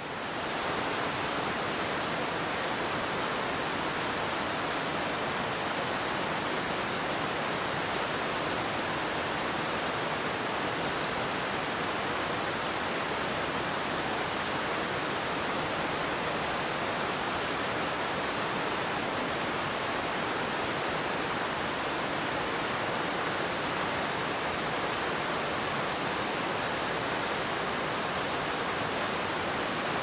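Waterfall: an unbroken, even rush of water cascading down rock into a pool.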